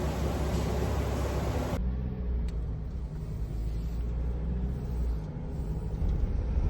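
Engine idling with a steady low rumble. A high hiss over it cuts off suddenly about two seconds in, and a few faint ticks follow.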